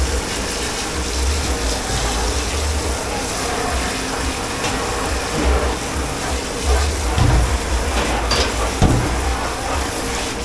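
Water running steadily into a sink, switched on just before and off just after, with a few short knocks over it.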